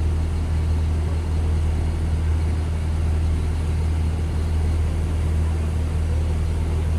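A steady, low engine drone with a constant hiss over it.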